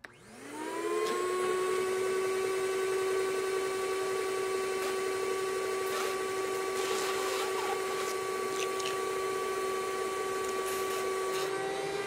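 RIDGID 14-gallon NXT wet/dry vac starting up, its motor whine climbing to speed within about a second, then running steadily as it sucks water up through the wand.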